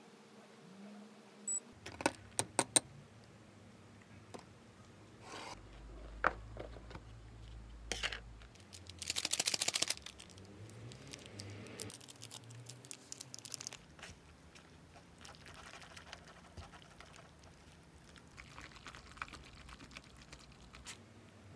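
Kitchen handling sounds while a cup noodle is made: a few sharp clicks early on, about a second of rapid rattling as a seasoning sachet of powder is shaken, then packet crinkling and wooden chopsticks scraping and stirring the noodles in a paper cup.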